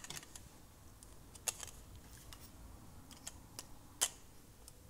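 A few sharp small clicks and taps as a rear wheel is fitted onto the axle of a 1/32 scale slot car and worked with a small hex driver. The two loudest clicks come about a second and a half in and near four seconds.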